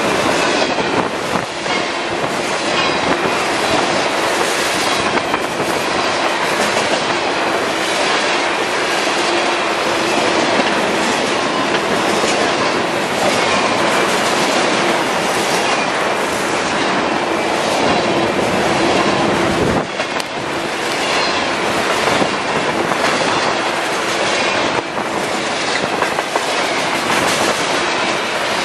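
Tank cars of a freight train rolling past at close range: steel wheels on the rails give a steady rumble and clatter, with a rhythmic clickety-clack that comes back a little more than once a second as each car goes by.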